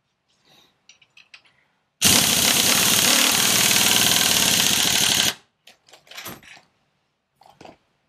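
Pneumatic impact wrench (air gun) hammering on a nut in one continuous burst of about three seconds, starting about two seconds in and stopping suddenly. It is followed by a few light clinks and knocks.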